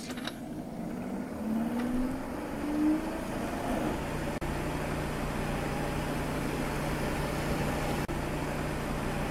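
Laserdisc player mechanism whirring as the disc spins up, its pitch rising over the first few seconds, then running at a steady whir with a low hum.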